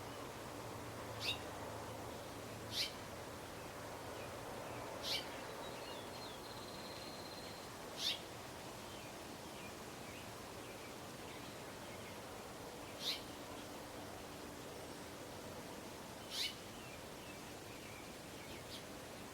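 A bird giving six short, sharp chirps, each a quick downward sweep, spaced a few seconds apart, with a fainter one near the end, over a steady background hiss.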